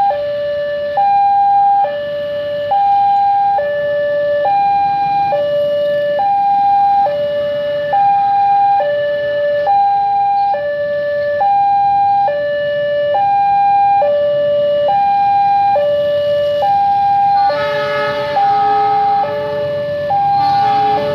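Railway level-crossing warning alarm sounding a steady two-tone hi-lo signal, each tone held about a second, the warning that a train is coming. Near the end the noise of an approaching diesel locomotive joins in.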